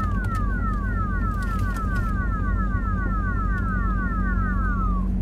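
An electronic alarm-like tone: falling chirps repeated about three times a second that stop near the end. Under it is the steady drone of the car's engine and tyres heard from inside the cabin.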